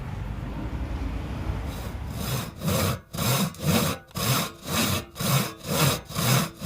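Hand saw worked back and forth in even strokes, about two and a half a second, starting about two seconds in over a steady low rumble.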